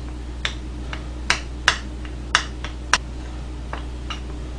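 Metal spoon clinking against a ceramic bowl while rice is stirred and mixed in it: about five sharp clicks over the first three seconds, with fainter taps after them. A steady low hum runs underneath.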